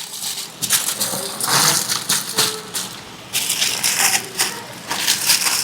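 Aluminium foil crinkling and rustling in irregular bursts as it is folded closed by hand around tomatillos roasting on the stove.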